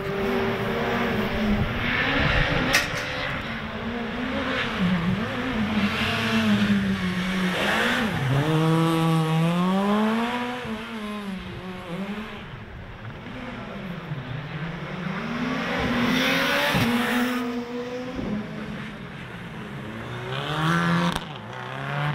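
Rally car engine revving hard through the gears, its pitch climbing and dropping again and again as the car accelerates and brakes around the stage, with a couple of sharp cracks along the way.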